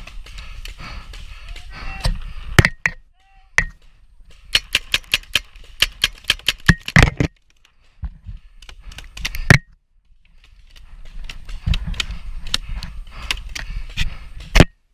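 Low-powered game guns firing in a skirmish: single sharp pops, then a quick string of about five pops a second for a few seconds, and a last loud pop near the end, over wind rumbling on the microphone.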